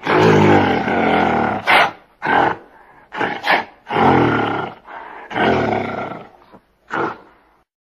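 A large animal roaring and growling in a series of about seven low, rough calls, the longest about a second, with short pauses between them.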